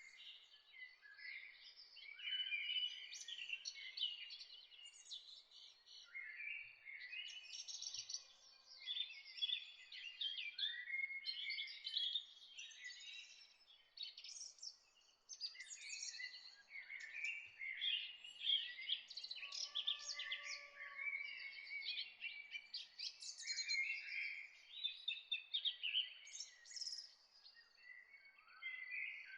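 Several songbirds singing and chirping at once, a dense, continuous chorus of quick trills and short high chirps.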